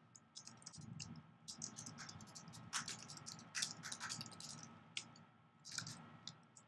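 Typing on a computer keyboard: a run of quick, irregular key clicks, faint.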